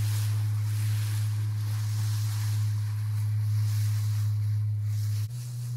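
A boat's motor droning in a steady low hum under a wash of wind and sea noise; the hum shifts slightly higher near the end.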